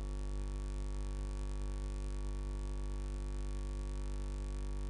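Steady electrical mains hum with many even overtones in the commentary sound feed, with nothing else heard over it.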